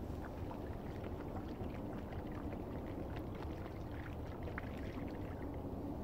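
Water poured from a plastic bottle into a pocket of folded parachute nylon, a steady run of small splashes and trickles that thins out near the end. A steady low background rumble lies underneath.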